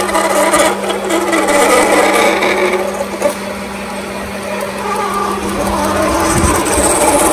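A metal lathe turning a long UHMW plastic rod while a long drill bores through it: a steady machine hum under a rasping cutting noise as ribbons of plastic chips stream off the drill. The cutting noise eases in the middle and picks up again toward the end.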